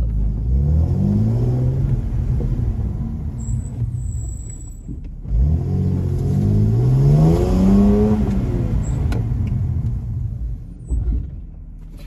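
Car engine pulling up through the revs twice as the car accelerates. Between the pulls, as the car brakes, the Ferodo DS2500 brake pads give a brief, faint, high-pitched squeal.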